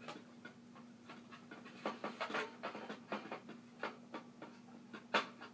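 A hard drive being handled and slid into a metal drive bay of a computer case: irregular scrapes, clicks and knocks, bunched about two seconds in, with one sharp knock near the end, over a steady low hum.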